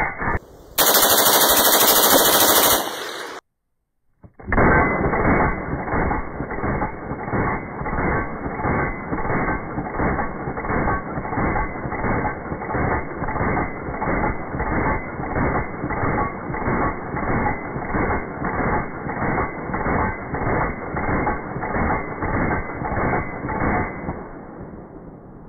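US .30 carbine (M1/M2) firing a long, very even string of shots, about two a second, that fades out near the end. Near the start comes a separate loud burst of noise of about two and a half seconds, then a moment of silence.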